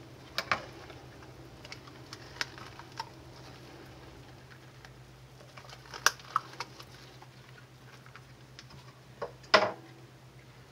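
Irregular clicks and knocks of a plastic cup and silicone spatula against a plastic mixing bowl as soft shave-soap paste is scraped and pressed with rubber-gloved hands; the loudest knock comes near the end. A faint steady hum lies underneath.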